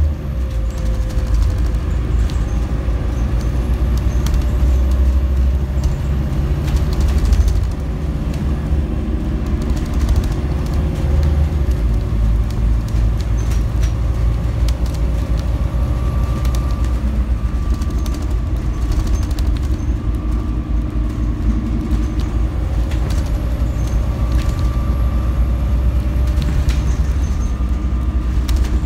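Scania N250UD double-decker bus on the move, heard from the top deck: a steady low rumble of its five-cylinder diesel engine and road noise, with occasional sharp rattles from the body. The rumble eases about a third of the way in, and a faint steady whine joins about halfway through.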